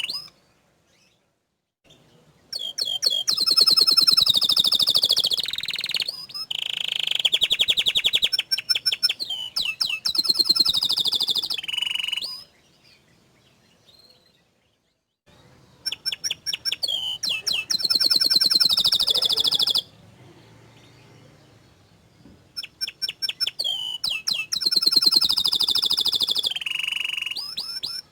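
Domestic canary singing in three long phrases of fast trills and rolls, the repeated high notes running for several seconds at a stretch, with a few seconds' pause after the start and between phrases.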